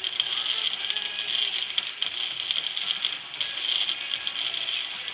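Electric arc welding: a steady, dense crackling and sizzling of the arc, with fine rapid clicks throughout.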